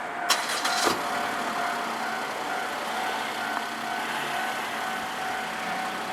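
Japanese railway level-crossing alarm ringing with a steady repeating tone, over vehicle noise. A few sharp clicks come in the first second.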